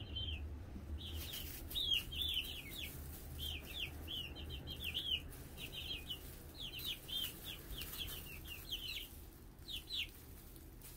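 A small flock of young chickens peeping: a busy run of short, high-pitched chirps, several a second, thinning out near the end.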